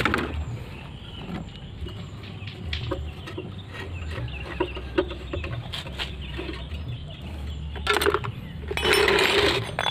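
Chickens clucking, with louder bursts about eight seconds in and near the end. Light metal clicks and taps come from work on the small engine.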